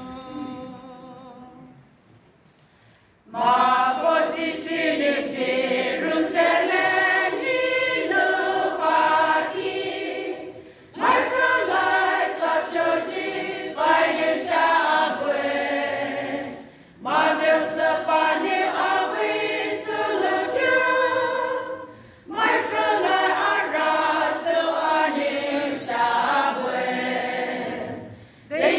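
Women's choir singing unaccompanied, in phrases of about five seconds with short breaks for breath between them. The singing is preceded by a single held note in the first second or so and a brief lull.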